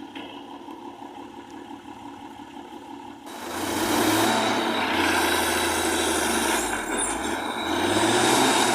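Heavy diesel engine of a construction vehicle, running quietly at first; about three seconds in it gets suddenly much louder and revs, its pitch sinking and then rising again near the end.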